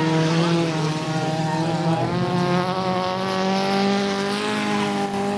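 Race car engines running hard on a dirt stubble-field track, a sustained engine note that rises and falls slightly in pitch.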